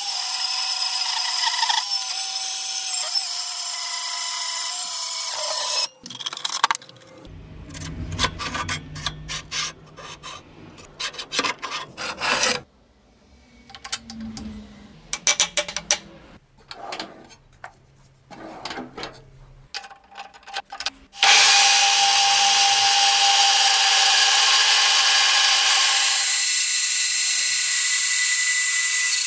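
A metal-cutting bandsaw cuts through steel bar stock for about six seconds. Then come scattered clicks and metal knocks as the workpiece is handled and clamped in a milling vise, with a low hum under them. From about 21 s a milling machine runs loud and steady, its end mill cutting into the end of a round steel bar.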